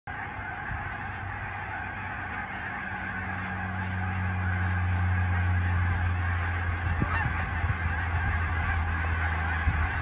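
A large flock of migrating geese flying overhead, many birds honking at once in a dense, continuous chorus that grows louder about halfway through. A steady low hum runs beneath it.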